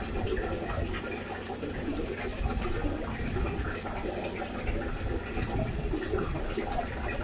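Koi splashing and slurping at the water's surface as they take food pellets, an irregular patter of small splashes and gulps over a steady water noise.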